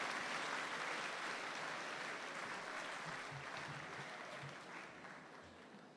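Audience applause in a large hall, dying away gradually over the seconds.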